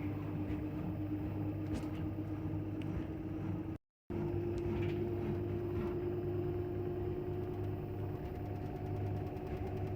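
LG washing machine spinning on its cotton programme at 1200 rpm: a steady motor whine over a low drum hum. The sound cuts out for a moment about four seconds in, then carries on.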